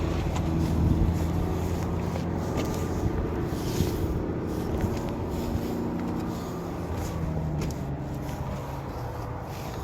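An engine running steadily, a low hum whose pitch shifts slightly a couple of times, with a few faint clicks.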